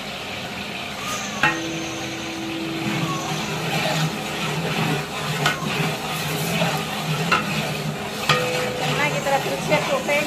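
Freshly added chopped onions sizzling in hot oil in a large metal pot, stirred with a long-handled ladle that knocks against the pot several times.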